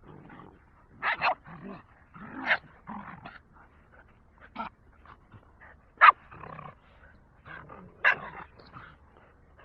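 Dogs play-fighting, making short barks and growls scattered through, the sharpest about six seconds in.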